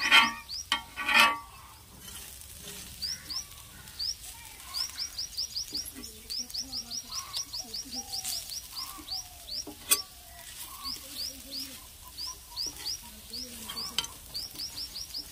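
Dosas sizzling on a hot iron griddle while a metal spatula scrapes and taps the griddle, with sharp clatters near the start and one about ten seconds in. A bird chirps in quick runs of short rising calls throughout.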